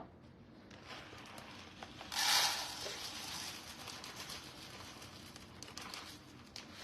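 Rustling and handling noise: a short, louder burst of rustling about two seconds in, then quieter rustling with a few light clicks.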